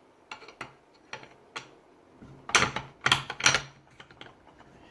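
Clicking and rattling of a freshly reassembled DeWalt reciprocating saw being worked by hand to check its mechanism: a few light clicks, then three short, louder rattling bursts about two and a half seconds in.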